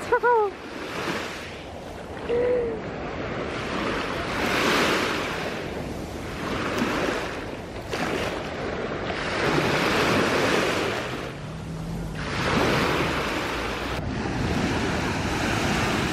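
Shallow sea waves breaking and washing up over sand, swelling and ebbing every two to three seconds. A brief squeal from a woman's voice comes at the very start, as the cold water reaches her feet.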